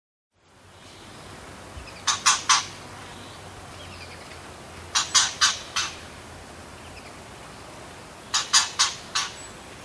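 White-rumped shama giving short harsh calls in three quick bursts of three to five notes each, a few seconds apart, over a steady background hiss.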